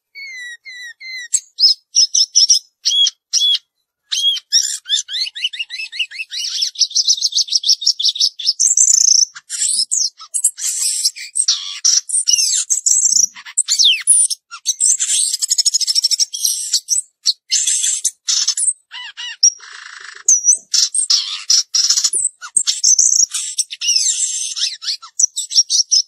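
A caged samyong garugiwa singing: a long, fast run of varied high chirps, whistles and trills broken by short pauses, starting about a second in with a few short sweeping notes and growing into a dense, loud song.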